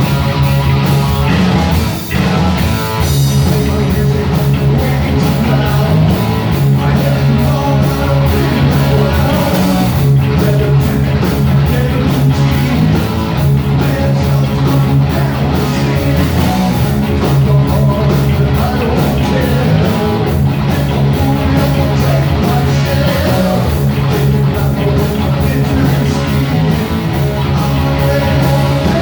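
Heavy metal band playing live and loud: distorted electric guitars, bass and a driving drum beat, with a brief dip in loudness about two seconds in.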